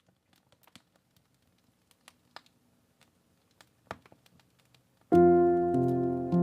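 Faint fireplace crackling with scattered small pops, then about five seconds in, piano music starts abruptly with loud, sustained chords.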